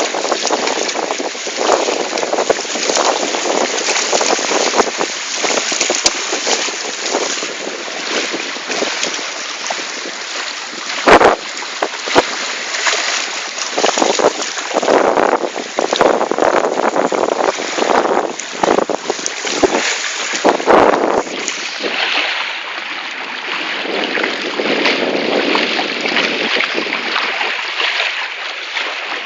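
Wind buffeting the microphone over the rush and splash of water past a sailing Hobie Cat catamaran, gusting up and down, with a sharp knock about eleven seconds in.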